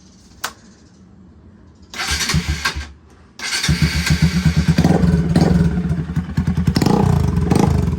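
Bajaj Pulsar NS200's single-cylinder engine started with its exhaust removed, running loud from the open header. About two seconds in it fires for a second and dies; it then catches and keeps running, revved up several times.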